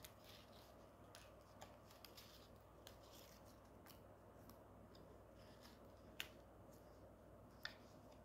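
Faint handling of paper cut-outs: soft rustles and small clicks as a paper doll and paper clothes are tucked into a paper pocket, with two sharper ticks in the second half.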